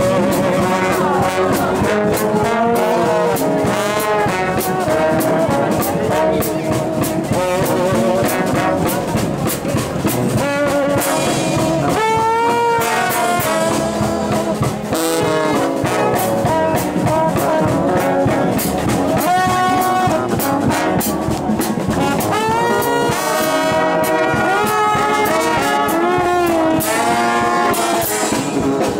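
Live brass street band playing: several trombones carrying the tune together over a sousaphone bass line, with a drum kit keeping a steady beat.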